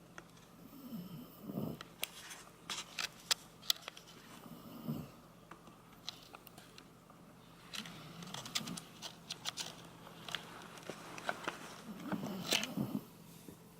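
Sleeping Shiba Inu breathing with soft snores about every three to four seconds, with sharp clicking mouth and lip-smacking sounds between the breaths.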